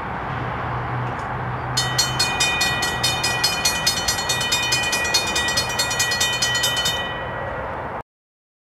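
Railroad crossing bell starting about two seconds in and ringing rapidly, about four to five strokes a second, over a steady rumble with a low hum. The bell stops near the seven-second mark and all sound cuts off abruptly a second later.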